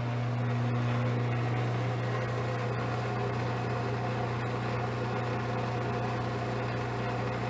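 Craftsman chain-drive garage door opener's motor running with a steady hum while the chain doesn't move: the gear inside the unit has sheared, so the motor spins without driving the chain.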